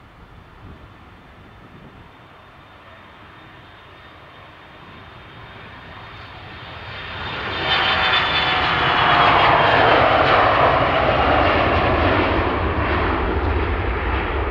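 Bombardier CRJ regional jet's rear-mounted turbofan engines at high power on the takeoff roll, swelling as the jet passes about halfway through, then a sustained rumble with a whine that drops slightly in pitch as it moves away.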